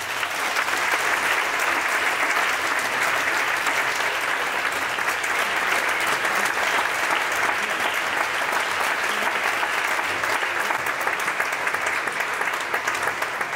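Concert audience applauding steadily, a dense even clapping right after the orchestra's final note.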